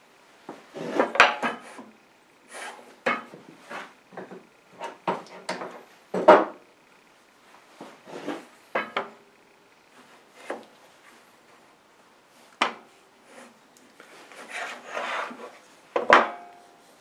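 Cut maple boards knocking, clacking and sliding against each other and on a table saw's metal top as they are handled, stacked and squared up. The sounds come as irregular clatters and rubs, with single sharp knocks about twelve seconds in and near the end.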